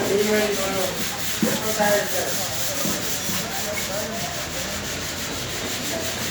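Steady rasping noise of sanding.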